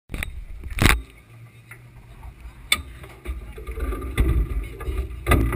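Four sharp knocks and bumps from crew handling a dragster's chassis close by, the loudest about a second in, over a low rumble.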